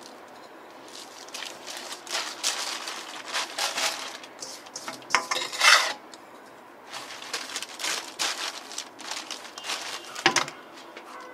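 Salt being sprinkled and rubbed by hand into raw pork ribs in a container: gritty scraping and rustling in irregular bursts, with sharper knocks about six and ten seconds in.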